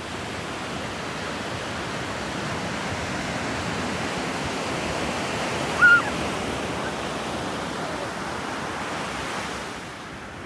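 Ocean surf washing onto the beach, a steady rushing that swells and then eases off near the end, with one short high-pitched cry about six seconds in.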